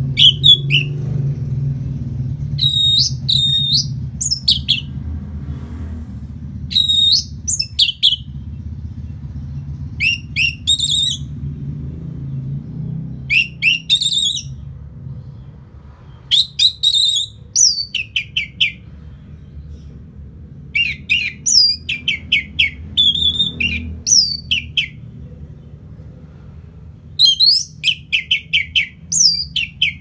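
Orange-headed thrush singing in short, rapid phrases of high, quickly rising and falling notes, clustered every second or few, with a steady low rumble beneath.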